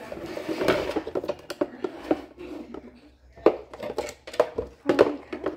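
Small items and containers being handled and set down: scattered sharp clicks and knocks, with a rustling hiss in the first second.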